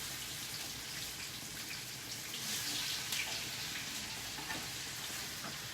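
Zucchini patties frying in oil in a pan with a steady sizzle, left on long enough to burn.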